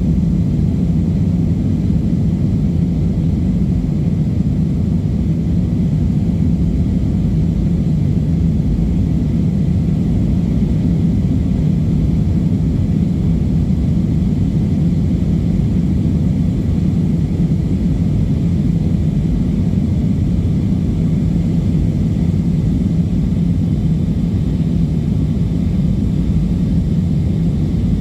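Passenger airliner cabin noise: the engines and rushing air make a steady low rumble with no change in pitch or level, heard from inside the cabin.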